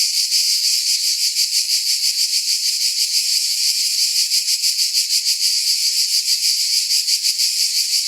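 Cicada calling: a continuous high, shrill buzz that pulses rapidly in loudness.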